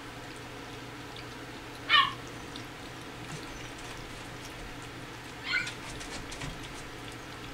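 Two short, high-pitched squeaks from four-week-old miniature dachshund puppies, the first about two seconds in and a softer one about five and a half seconds in, over faint clicky lapping and smacking as the litter eats soft food.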